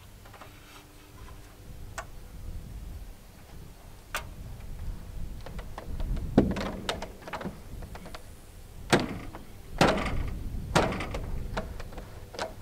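Hollow knocks and thumps from people climbing and shifting on a large plastic water tank and an aluminium ladder. A few scattered knocks at first, then several loud ones from about six seconds in.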